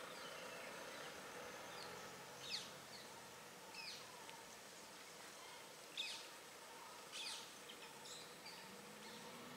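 Wild birds calling in short, sharp chirps that sweep downward, a few scattered calls a second or two apart, over a faint steady hum and outdoor background noise.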